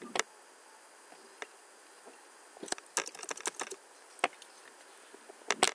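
Computer keyboard typing: a few scattered single key clicks, a quick run of about ten keystrokes around three seconds in, and a couple more near the end.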